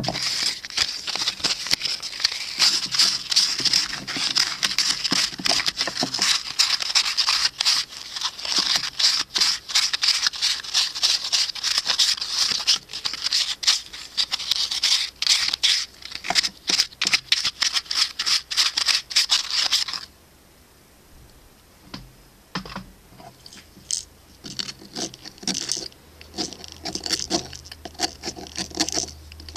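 Hand sanding a freshly CNC-machined hardwood wheel with a small abrasive pad: fast, scratchy rubbing that stops about twenty seconds in. Light handling knocks follow, and a low hum comes in near the end.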